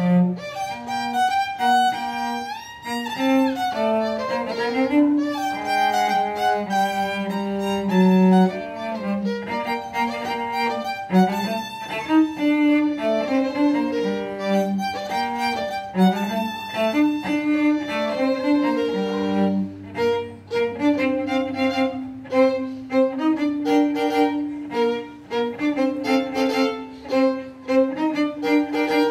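Violin and cello duet: the violin plays the melody over the cello's bowed lower line.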